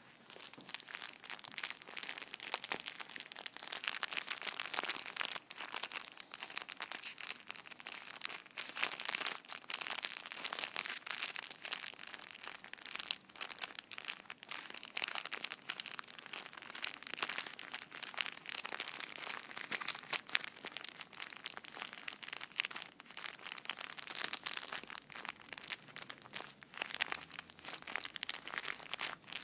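Plastic packaging crinkled and scrunched by hand: a dense, irregular crackle that starts about half a second in and keeps going.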